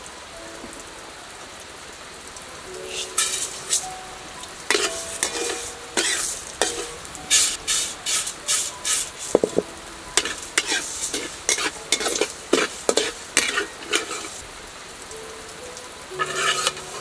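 Dry grains being dry-roasted and stirred with a spatula in a metal wok, a run of rasping scrapes, one to two a second, starting about three seconds in and stopping around fourteen seconds, with one more short burst near the end.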